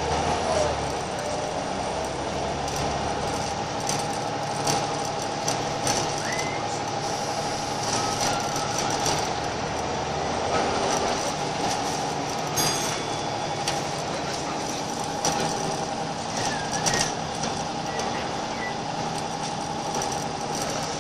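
Scania L94UB single-deck bus heard from inside the saloon while under way: its diesel engine runs steadily with a constant whine, and the bodywork and fittings give frequent short rattles and clicks.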